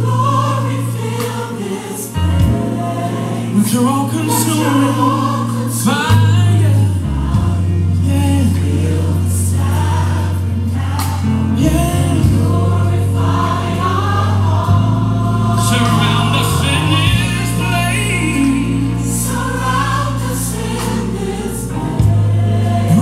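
Gospel song with a choir singing over held bass notes that change every few seconds.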